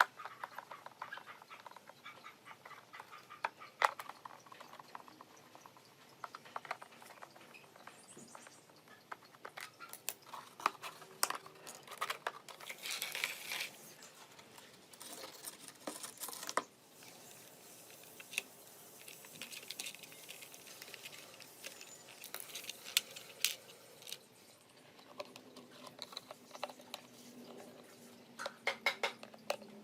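Scattered light clicks, taps and knocks of small hard parts and tools being handled, with a short hiss about halfway through.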